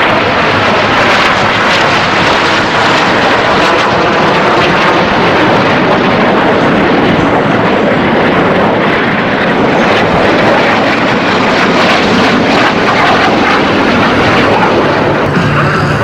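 Jet engines of the Snowbirds' CT-114 Tutor aircraft flying by in formation: a loud, steady rush of jet noise.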